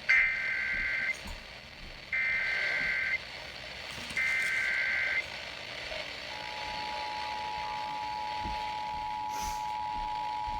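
Emergency Alert System broadcast on the radio. It opens with three one-second bursts of SAME header data tones, a rapid warbling beep, then about six seconds in the steady two-tone EAS attention signal begins. Together they mark the start of an emergency alert activation, here a tornado warning.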